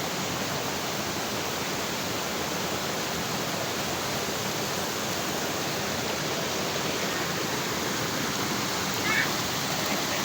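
Waterfall: a steady rush of falling water. A brief higher-pitched sound cuts in about nine seconds in.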